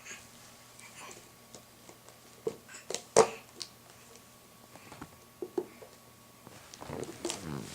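A 7-month-old baby making short mouth chirps and clicks, scattered and irregular, the loudest about three seconds in, with a brief falling voiced squeal near the end.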